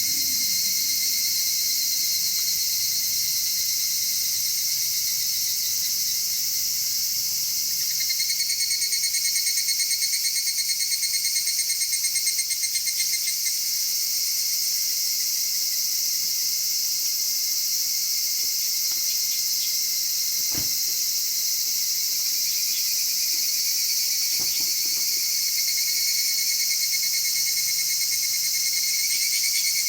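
Insects chirping in a steady, finely pulsing chorus, with a few sharp pops from burning firewood about two-thirds of the way through.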